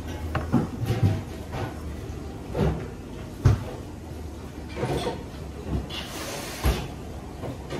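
Eating sounds at a table: soba noodles being eaten, with chopsticks and dishes knocking against the soba boxes and trays. The knocks come one at a time, the sharpest about three and a half seconds in and another near the end.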